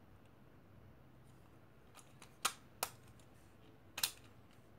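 A few sharp plastic-and-metal clicks, about four in the second half, as a bit is pulled from the 8-in-1 screwdriver and the next bit is snapped into its shaft.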